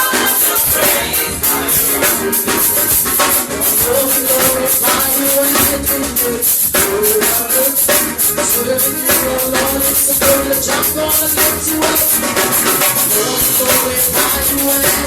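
Church praise band playing an upbeat song, with tambourine and drums keeping a busy, steady beat under a sustained melody line.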